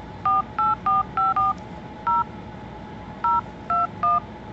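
Touch-tone phone keypad beeps as a phone number is dialed: nine short dual-tone beeps, five in quick succession, a single one, then three more.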